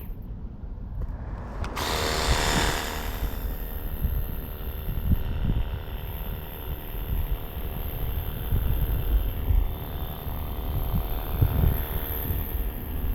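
Pressure washer running: a steady motor tone under a hiss of spray, which is loudest from about two to four seconds in.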